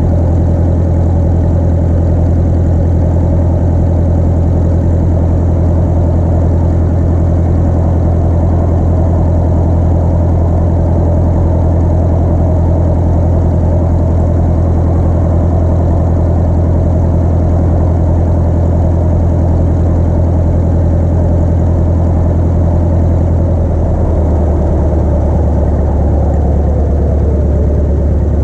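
Piper Arrow's piston engine and propeller droning steadily. About 24 seconds in, the note drops a step lower as the engine slows.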